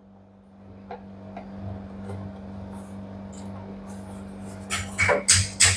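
Faint handling noise, then about three-quarters of the way in a quick run of sharp metallic clinks and rattles from the spring-wire clamp being fitted around the washing machine's rubber door bellow. A steady low hum runs underneath.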